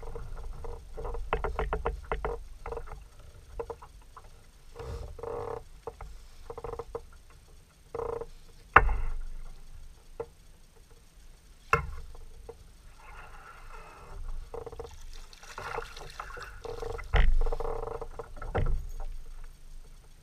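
A spinning reel cranked in runs of quick clicking as a bass is fought from a kayak, with a few sharp, loud knocks.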